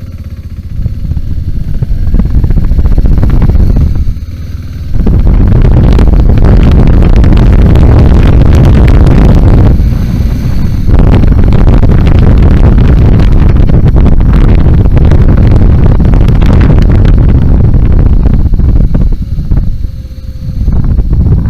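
BMW G 650 GS single-cylinder motorcycle engine running while the bike is ridden, with heavy low rumble on the microphone. It builds up in the first couple of seconds and eases off briefly three times, about four, ten and nineteen seconds in.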